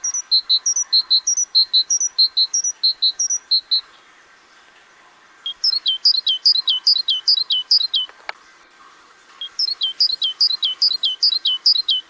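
A small songbird singing in loud, high, repeated phrases. First comes a run of paired notes for about four seconds, then after a pause two runs of quick down-slurred whistles, each about two seconds long, with a faint click between them.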